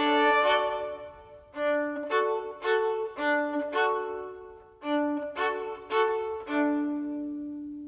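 An alarm tune of separate pitched notes in two short phrases. The last note is held and fades away near the end.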